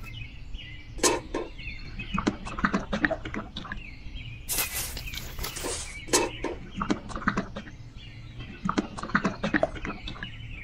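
Small metal tool scooping and scraping wet cement mortar on a wooden board and dropping it into a miniature tin bucket: irregular short wet scrapes and clicks, with a louder scrape about halfway through.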